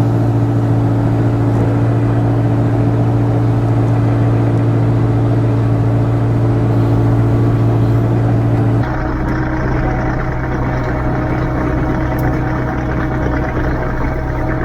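Kubota KX057-4 excavator's diesel engine running steadily. About nine seconds in its sound changes abruptly, then it runs on steadily.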